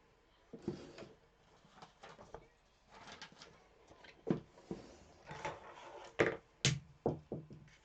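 Scattered light taps, clicks and rustles of hands handling small vinyl pieces and craft tools on a tabletop, with several sharper ticks in the second half.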